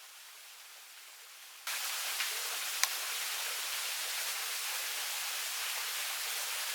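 Steady rush of flowing water, starting abruptly about a second and a half in after a faint hiss, with a couple of small clicks.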